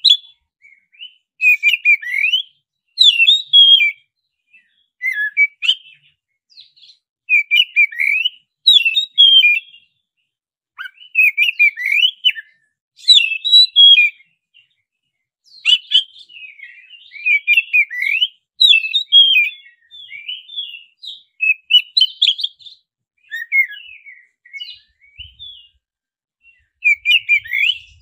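Black-breasted oriental magpie-robin (kacer dada hitam) singing in quick bursts of loud, sharp whistles and chirps, with short pauses between the bursts.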